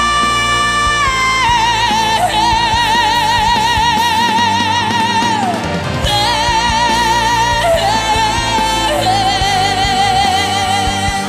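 A Korean ballad playing, its lead line holding long high notes with vibrato over a steady backing band, with a few changes of note along the way.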